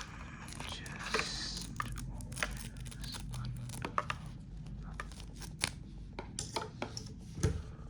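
Plastic cable packaging being handled and pulled apart, with crinkling and many small sharp clicks and crackles.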